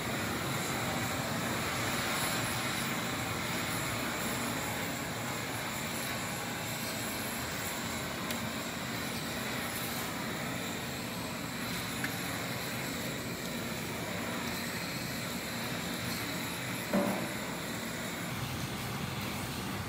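Water running steadily into a stainless-steel tank where cut tofu blocks soak in cold water, a steady rushing hiss. A faint high whine rides above it and stops near the end, and there is a single short knock shortly before.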